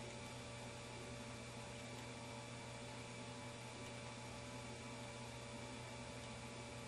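Steady low electrical hum over a faint even hiss.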